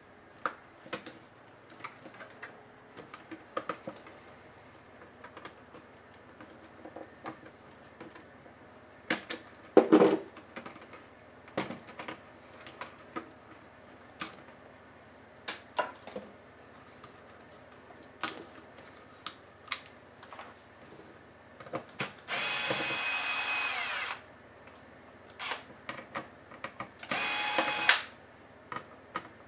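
Small plastic clicks and snaps as a netbook keyboard is pried and lifted out, with a louder clatter about a third of the way in. Then a handheld electric screwdriver runs twice, about two seconds and then about one second, backing out the screws under the keyboard.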